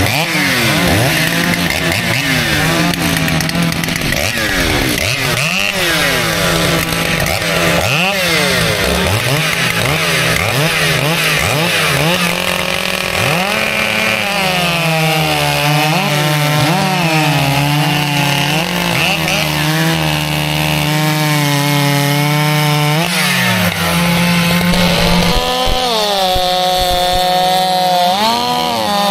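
Two-stroke chainsaws revving up and down, several at once at first, then a saw held at high speed cutting through a squared timber beam, its engine note dropping briefly as it bites.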